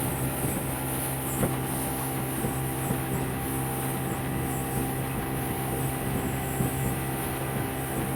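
Fishing boat's motor running steadily under way, with a constant low hum and engine tones.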